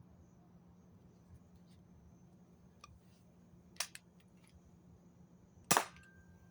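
Toy gel-bead blaster being worked and shot: a few light plastic ticks, then two sharp snaps about two seconds apart, the second the louder with a brief ring after it.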